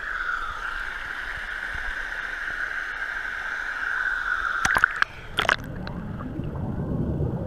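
Water pouring over a small waterfall into a stream pool, heard through a camera held at the water surface: a steady rushing hiss. About five seconds in there are a few sharp knocks and splashes as the camera dips under, and after that the sound turns to a muffled low underwater rumble of bubbles.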